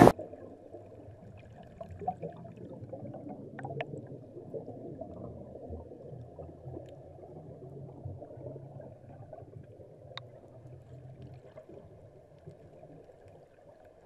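Muffled underwater sound of water rushing and bubbling around a snorkeler's camera, low and dull with no high sounds. A couple of faint sharp ticks come through partway in.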